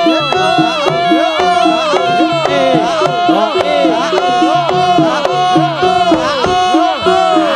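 Live Javanese jaranan gamelan music, loud and continuous: kendang drumming and struck gong-chime instruments keep a steady repeating pattern under a wavering, heavily ornamented melody that bends up and down.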